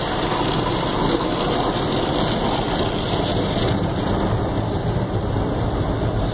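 Automatic car wash spraying water and foam over the car's windshield, heard from inside the cabin as a steady rushing hiss.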